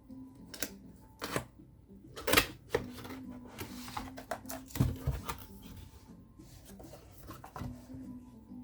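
Irregular clicks and knocks with a stretch of rustling, like a keyboard or its packaging being handled, and a heavier thump about five seconds in, over faint background music.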